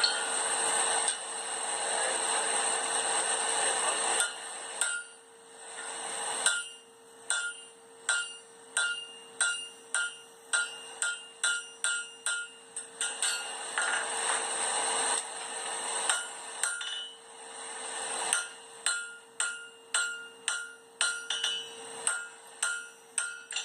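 Blacksmith's hammer striking hot steel on an anvil while forging a tongs jaw, in two runs of steady blows about two a second, each blow with a short metallic ring. A steady hiss fills the stretches between the runs.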